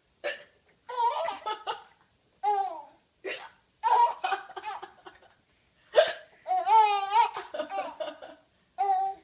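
A woman hiccuping again and again, and a baby laughing in high-pitched bursts in reply; short bursts with silent pauses between them.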